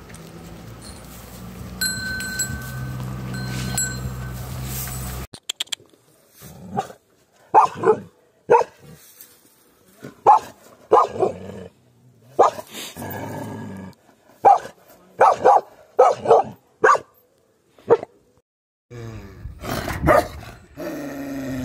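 Bakarwal puppy barking again and again in short, separate barks. A steady low hum comes before the barks, and a deeper, longer growling call sets in near the end.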